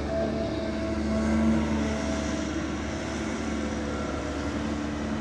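Diesel engine of a Caterpillar 320 Next Gen hydraulic excavator running steadily at work, a low hum with a slight swell about a second and a half in.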